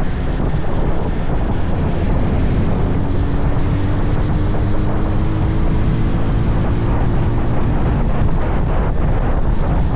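Motorcycle engine running at road speed under heavy wind buffeting on the microphone. Its tone climbs slowly from about three seconds in and drops back near eight seconds.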